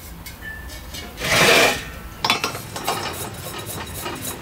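Empty 1 lb propane cylinder being screwed onto the refill adapter on a 5-gallon propane tank: metal threads scraping and rubbing with small clicks through the second half. About a second in there is a short, louder rasping rush.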